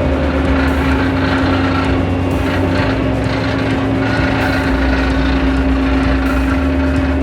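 Heavy construction machine's diesel engine running steadily, a loud even drone with a constant low hum.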